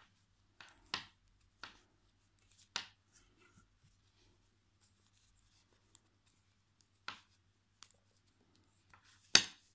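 Knitting needles clicking and scraping against each other as stitches are worked, a few scattered ticks with soft yarn rustling between them, and one sharper click near the end.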